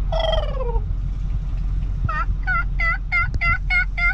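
Wild turkeys calling: one falling call at the start, then about two seconds in a quick run of about eight yelping notes, about three a second. Under them runs the steady low rumble of the truck's engine.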